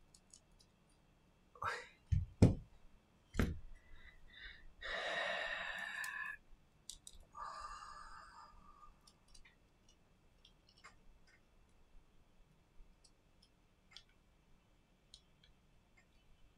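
Redmi Note 9 Pro parts and tools being handled on a silicone repair mat: a few sharp knocks as pieces are set down or tapped, a rustle of about a second and a half, a shorter rustle, then scattered light clicks.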